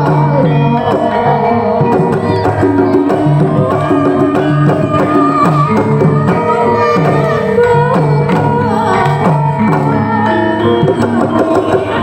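Javanese gamelan music: bronze metallophones ringing a steady melody over kendang hand-drum beats.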